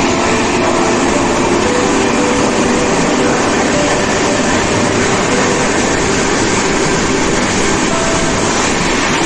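Steady running noise of a moving passenger train, a dense even rumble and rush heard from on board, with faint voices in the background.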